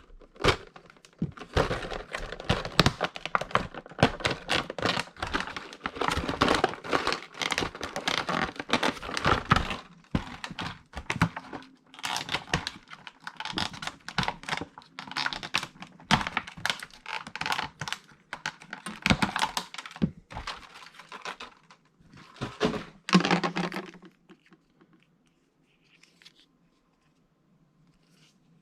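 Action figure packaging being handled and opened by hand: a busy run of plastic crinkling, tearing, clicks and knocks that stops about four seconds before the end.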